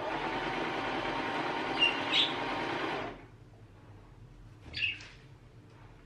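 Electric sewing machine running steadily for about three seconds, then stopping. A budgie gives two sharp calls over the machine and one more call in the quiet afterwards; the budgie dislikes the machine's loud sound.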